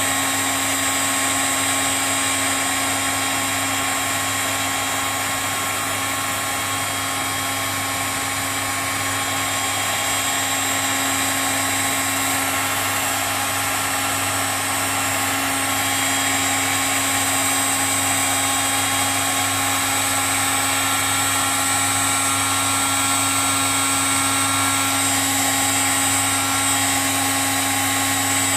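Hot air gun running steadily, its fan motor whirring and blowing hot air onto a freshly painted van panel.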